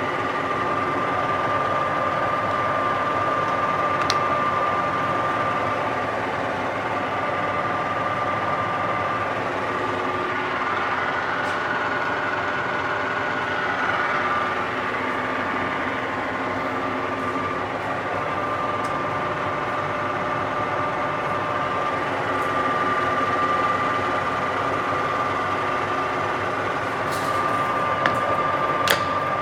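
Colchester Triumph 2000 centre lathe running steadily, its all-geared headstock giving a constant gear whine over mechanical noise, with a couple of sharp clicks near the end.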